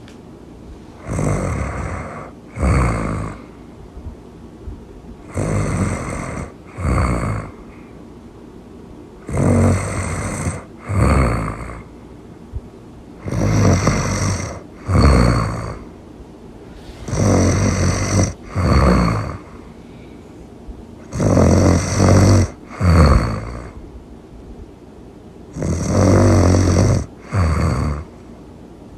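A person snoring loudly and steadily. Each breath cycle is a longer snore followed at once by a shorter one, repeating about every four seconds, seven times in all.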